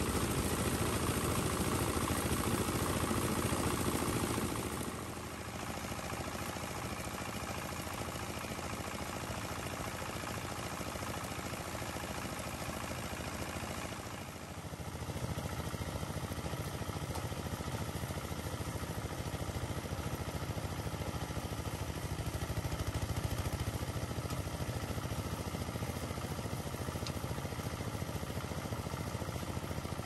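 Engine-driven rice thresher running steadily, its small engine humming while the drum beats the rice and grain and straw rattle through the machine. Loudest in the first few seconds, then a little quieter and even from about five seconds in.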